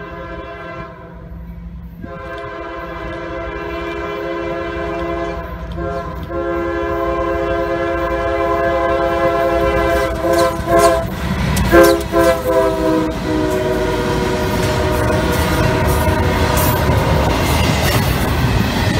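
A CSX GE diesel freight locomotive's air horn sounds several long blasts and a short one as it nears the grade crossing, in the standard crossing pattern. The horn stops about two-thirds of the way in, and the rumble and clickety-clack of the double-stack intermodal cars passing over the rails grow loud.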